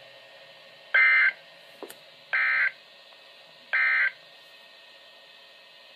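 Emergency Alert System end-of-message data bursts on NOAA Weather Radio: three short, identical digital screeches about a second and a half apart, signalling the end of the alert, over faint radio hiss.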